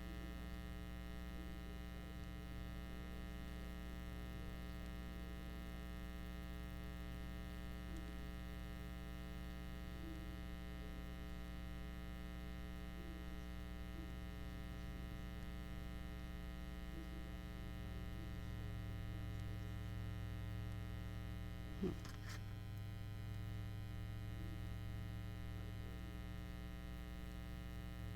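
Steady electrical mains hum with many overtones, with faint small handling sounds of thread and paper. A single sharp click comes near the end.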